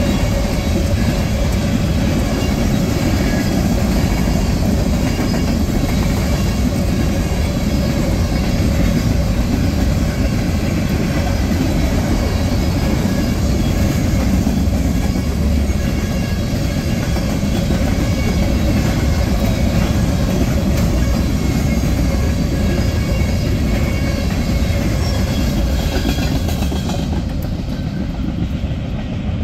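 A train passing close by, its wheels running steadily over the rails in a loud, even rumble that thins slightly near the end.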